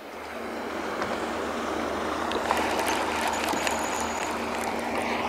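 Choppy lake water lapping against a bass boat's hull, with wind and the steady hum of other bass boats' outboard motors running past. Scattered small ticks join in from about halfway.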